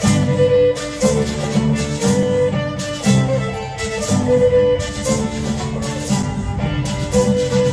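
Fiddle-led Caymanian kitchen dance band music: a fiddle plays the tune over a band accompaniment with a steady, repeating beat.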